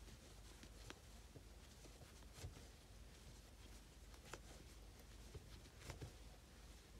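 Near silence with a few faint, short clicks and rustles of a crochet hook being worked through yarn, stitch by stitch.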